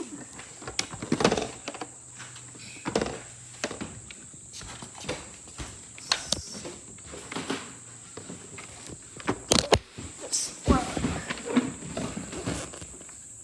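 Irregular knocks, clicks and short rustles as the robot vacuum and its charger are handled, over a faint steady high-pitched tone.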